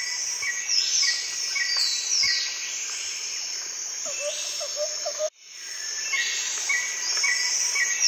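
Jungle ambience of insects and birds: short chirps repeating about twice a second under high falling calls, with a lower warbling call about four seconds in. The sound drops out abruptly about five seconds in, then the same chorus starts again.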